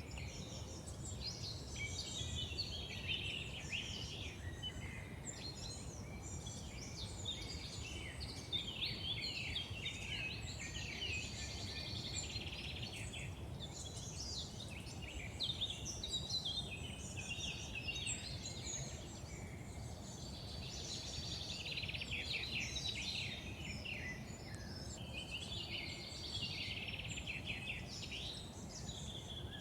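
Chorus of many songbirds singing and calling, overlapping chirps and trills throughout, over a steady low background rumble.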